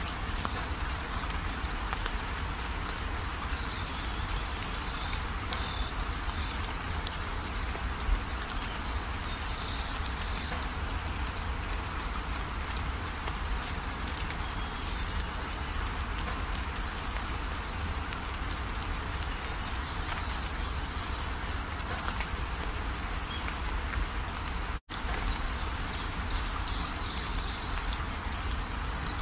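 Steady bubbling hiss of a pot of chicken boiling on a gas stove. Near the end the sound drops out for an instant and resumes as chopped onions sizzling in oil.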